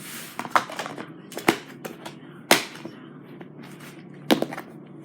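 Over-activated fluffy slime being pulled and squeezed, snapping and popping sharply about five times at uneven intervals.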